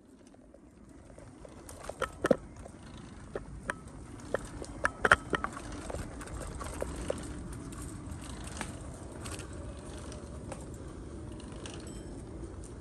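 Bicycle riding along a dirt forest path: the tyres give a steady low rumble over the ground. Sharp knocks and rattles from the bike going over bumps come in a run over the first several seconds, loudest about two and five seconds in.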